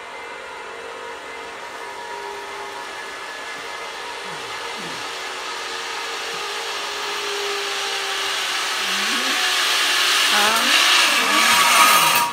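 Zipline trolley rolling down a steel cable carrying a rider in a prone harness: a whirring hiss that grows steadily louder as it approaches and is loudest as it passes close, near the end.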